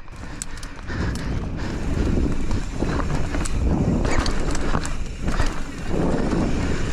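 Mountain bike being ridden on a trail: a steady rumble of tyres and wind on the microphone, with scattered clicks and knocks from the bike, louder from about a second in.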